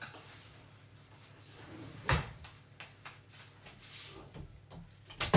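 A kitchen drawer being opened and shut, with a sharp knock about two seconds in and a louder one near the end.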